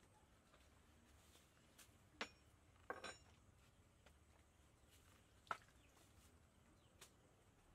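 Near silence broken by a few faint, sharp clinks and knocks, with a small cluster about three seconds in and the loudest single click a little past five seconds.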